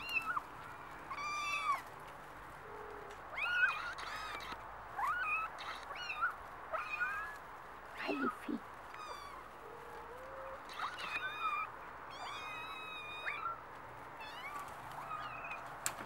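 Norwegian Forest Cat kittens mewing, short high mews one after another, with a longer wavering mew about twelve seconds in.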